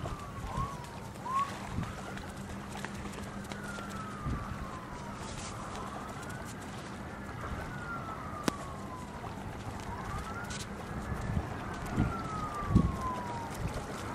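A siren wailing, its pitch sweeping slowly up and then down every few seconds, with a few quick upward chirps near the start.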